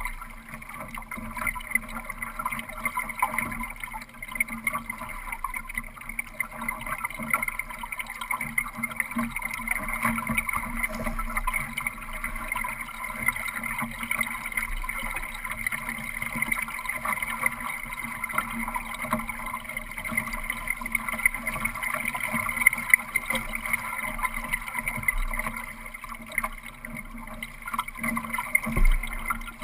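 Water rushing and splashing along the hull of a Solo sailing dinghy under way, a steady hiss with constant small crackles, and a thump near the end.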